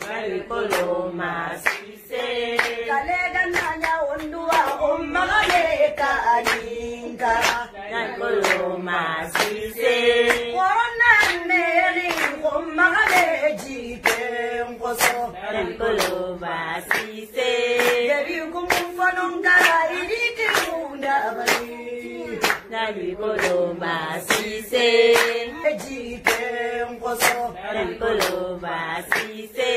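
A song sung by a woman's voice over a steady beat of sharp hand claps.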